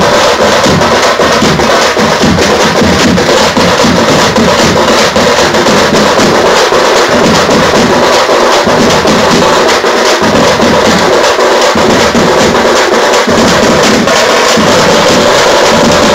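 A tamte frame-drum troupe playing together, many drums beaten with sticks in a fast, dense rhythm over large bass drums. It is loud and unbroken.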